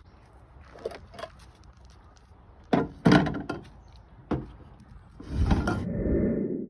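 A few sharp knocks and thumps, then about a second and a half of louder rustling rumble that cuts off suddenly.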